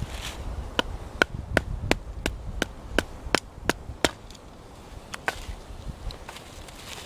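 Wood being chopped: a quick, even run of about ten sharp strikes, roughly three a second, then a few scattered strikes after a short pause.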